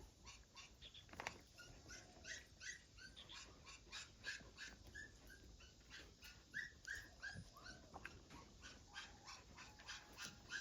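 Dogs whimpering and yipping faintly: runs of short, high whines, about three a second.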